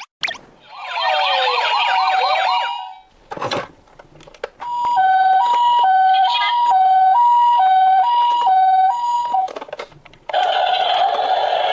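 Electronic siren sounds from toy ambulances: first a fast warbling siren, then a knock, then a two-tone hi-lo siren switching between two notes over and over for about five seconds. Near the end a steady buzzing whir starts.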